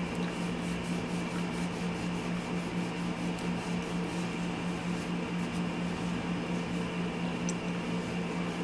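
Steady low hum of running room equipment, with a constant low tone, and faint rubbing of a cloth over plastic screwdriver handles.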